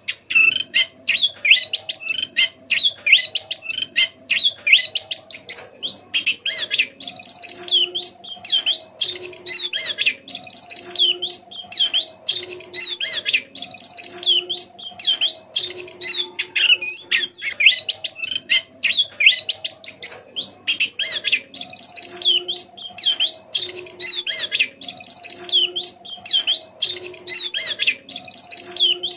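White-eye (pleci) twittering in a rapid, unbroken stream of short, high chirping notes: the soft chattering 'ngeriwik' song. A quieter, lower call repeats every second or two underneath.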